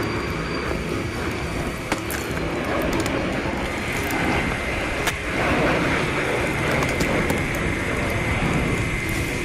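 Stump-removal machine at work: its engine runs steadily under scattered sharp cracks and knocks.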